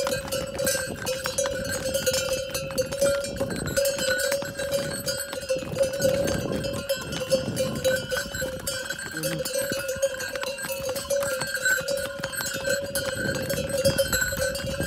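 Bells on the horses' harness ringing continuously as the horses walk, a steady jangling tone, with hooves stepping on a stone path.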